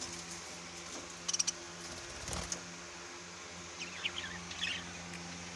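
Aviary birds giving scattered short chirps and calls over a low steady hum: three quick high chirps about a second in, then a cluster of short calls in the second half.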